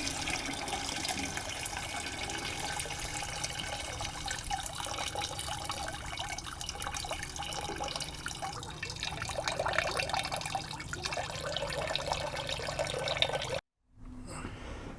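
Water running and splashing, with many small clicks through it; it cuts off abruptly near the end, leaving a quieter, steady hum.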